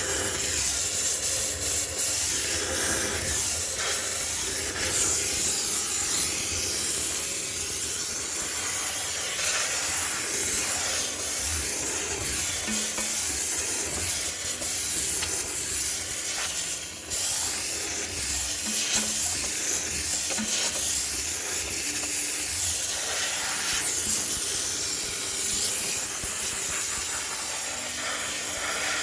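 High-pressure steam cleaner hissing steadily as it sterilizes a sneaker washing machine, with a short break about seventeen seconds in.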